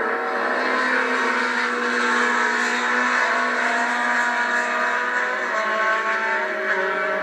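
Several small-displacement race car engines running together around the circuit, heard at a distance. Their overlapping steady engine notes shift slightly in pitch as the cars move through the course.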